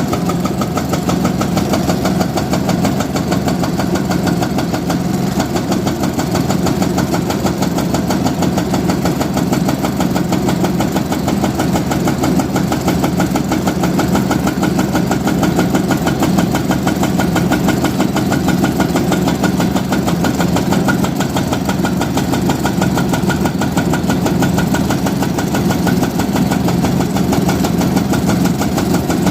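Diesel engine of a heavy machine running steadily with a fast, even chugging beat and no clear revving.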